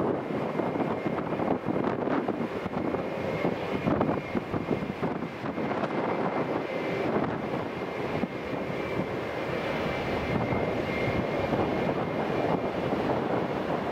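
Airbus A319 jet airliner arriving to land, a steady jet rush with a thin high whine held throughout.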